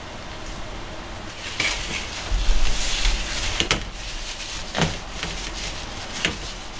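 A metal ladle clinking and scraping against enamel bowls as sauce is spooned over gnocchi, with four sharp clinks and some handling noise.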